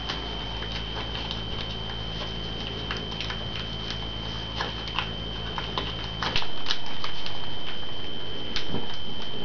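Origami paper being folded and creased by hand: short, scattered crackles and rustles. A steady high-pitched whine runs underneath, and a low background hum cuts off about six seconds in.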